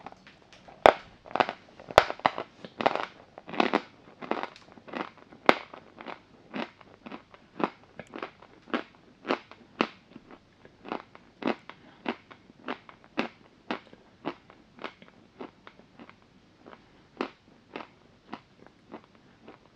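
A person biting into a block of chalk and chewing it: a couple of sharp, loud snaps in the first two seconds, then steady crunching chews about two a second that fade gradually toward the end.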